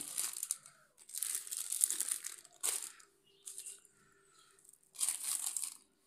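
Plastic wrapping on spools of nylon fishing line crinkling as they are handled, in several bursts with short pauses between them.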